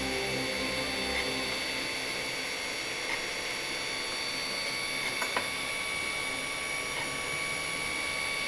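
3D printer printing, its stepper motors whining in steady high tones, with a few light ticks about five seconds in.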